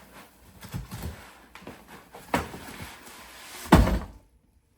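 Cardboard box and packaging being handled as the heater unit is pulled out: rustling and scraping with a few knocks, the loudest a heavy thump near the end.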